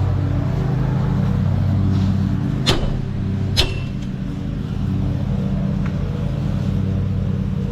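Tractor engine idling steadily while a hammer strikes metal twice, a second apart, the second blow ringing briefly: knocking off a half-sawn bolt to shear it.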